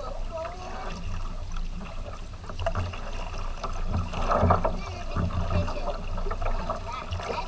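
Double-bladed paddle strokes dipping and splashing beside a tandem kayak, with water swishing along the hull; the splashing is strongest about halfway through.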